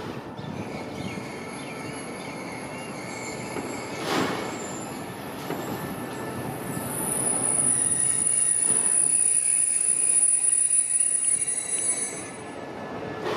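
SRT QSY-class diesel-electric locomotive 5202 rolling slowly over low engine rumble, its steel wheels giving a high, thin squeal that grows louder in the second half and eases near the end.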